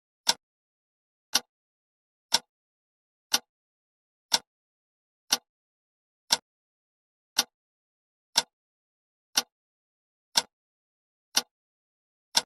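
Clock ticking: one short, sharp tick every second with silence between, marking the seconds of a countdown timer.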